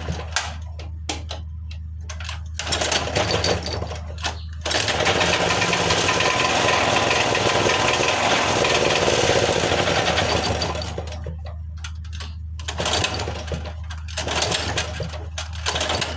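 Small generator's petrol engine running rough and misfiring: a steady low hum broken by irregular pops and knocks, louder for several seconds in the middle. The misfire is one the owner puts down, probably, to a spark plug gap set too close.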